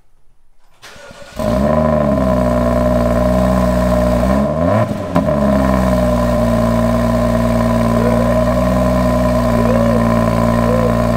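SUV engine heard at its exhaust tailpipe: cranked and caught about a second in, flaring up in revs on start-up before settling into a steady idle. One quick rev blip comes about halfway through.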